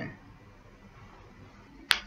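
Faint room hiss, then a single sharp click near the end.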